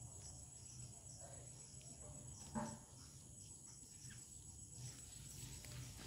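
Faint, steady, high-pitched insect chirring over a low background hum, with a single brief knock about two and a half seconds in.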